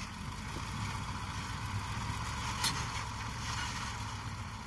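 Heavily loaded dump truck's diesel engine running steadily under load as it pulls across soft dirt, with a low rumble throughout. One sharp click cuts through about two and a half seconds in.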